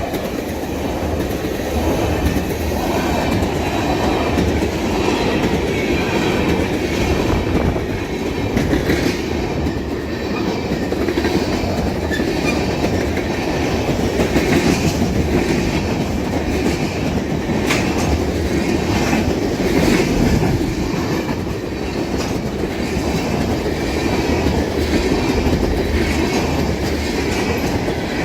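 Freight train cars rolling past steadily, their steel wheels clicking sharply over rail joints now and then.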